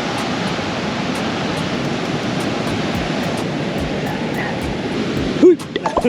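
Ocean surf washing steadily on a beach, a constant rushing noise. Near the end a short, louder sound with a bending pitch comes in and the noise cuts off abruptly.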